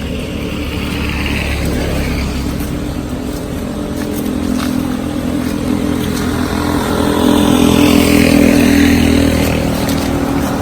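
A motor vehicle's engine running steadily, growing louder to a peak about eight seconds in, then easing off.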